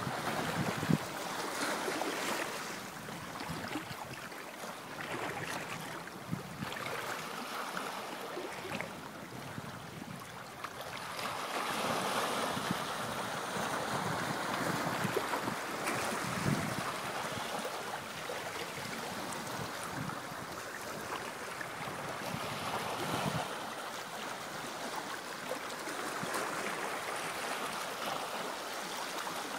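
Small sea waves washing and lapping against shoreline boulders, with wind gusting on the microphone now and then.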